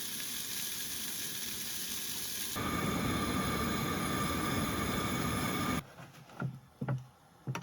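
Food sizzling in a frying pan, a steady hiss. About two and a half seconds in it jumps to a louder, fuller sizzle, which cuts off suddenly near six seconds, leaving a few light knocks.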